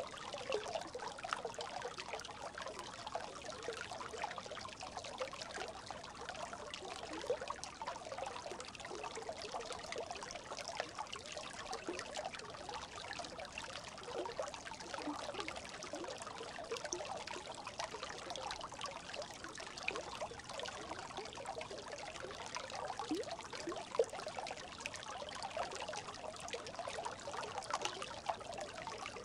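Brook babbling: steady trickling water with many small gurgles.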